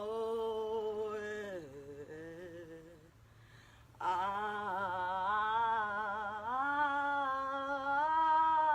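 A woman's voice toning long, wordless held notes. The first note slides down and fades about a second and a half in, and after a short pause a new run of long notes starts about four seconds in, stepping up in pitch partway through.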